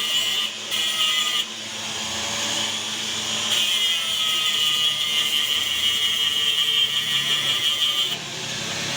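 Metalworking on a steel motorcycle stand: a high, hissing power-tool or welding sound in stop-start stretches. It breaks off briefly near the start, pauses for about two seconds, then runs steadily until shortly before the end.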